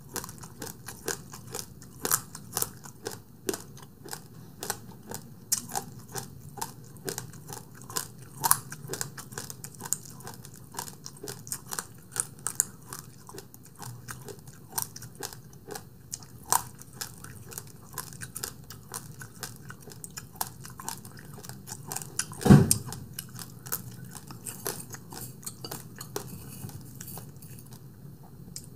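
Close-miked mouth sounds of someone chewing and eating, with many small wet clicks and smacks. There is one much louder low knock about three quarters of the way through.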